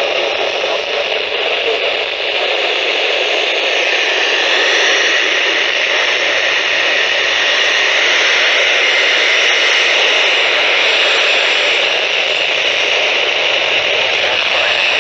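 Steady hiss of radio static from a receiver whose weather radio broadcast has faded out in the middle of a warning, getting a little louder about four seconds in.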